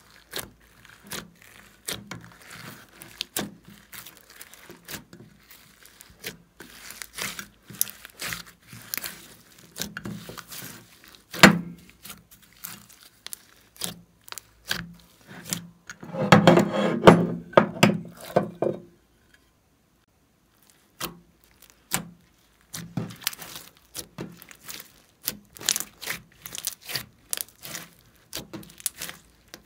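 Glossy slime being kneaded and stretched by hand: a rapid, irregular run of sticky clicks and small pops. There is one sharp knock a little before halfway, and a denser, louder stretch of squelching crackle about two-thirds in, followed by a short pause.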